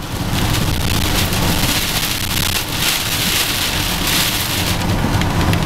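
Heavy rain and wind on a moving car, a steady hiss over the low rumble of the car on the road, swelling a little in the middle.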